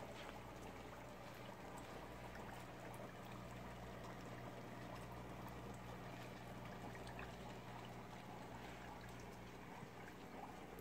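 Aquarium filter running: a faint, steady trickle of water over a low, steady hum.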